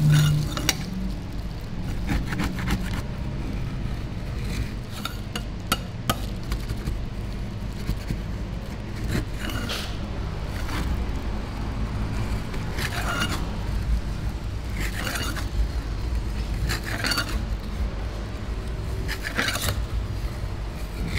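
Metal spatulas scraping frozen ice cream along a chilled steel pan and pushing it into rolls, in short strokes about every two seconds, over a steady low hum.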